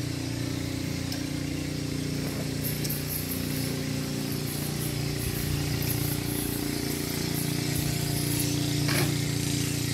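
A small engine running steadily at idle, with an even hum that doesn't change speed. A short noise stands out about nine seconds in.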